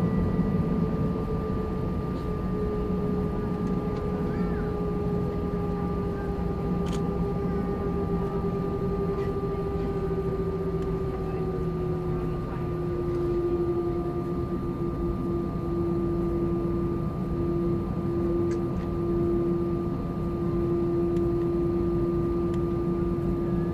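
Airbus A320-200 jet engines running steadily with a drone and several whining tones. The main whine eases slightly lower about halfway through.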